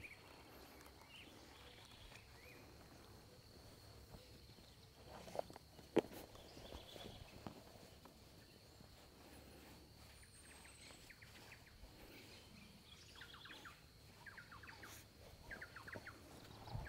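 Quiet outdoor ambience: birds chirping in short quick runs in the second half, over a steady high-pitched hum, with a single sharp knock about six seconds in.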